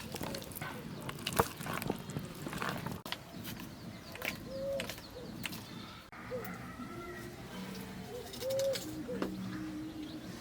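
Bird calls, with scattered clicks and knocks in the first few seconds and short arched calls in the second half.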